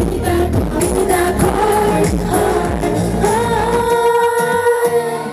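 Pop song with singing and a beat. About four seconds in, the bass drops out and a long sung note is held.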